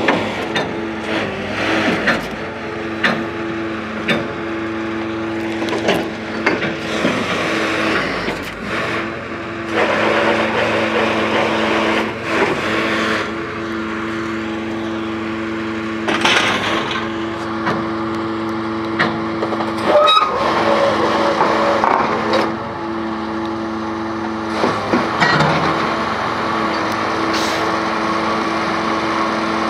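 Truck-mounted borewell drilling rig running: a loud, steady mechanical drone from its engine and drilling machinery, with sharp knocks here and there.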